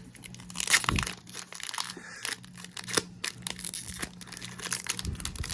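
Foil Pokémon card booster pack wrapper crinkling and being torn open by hand, a run of crackles with a louder tear about a second in.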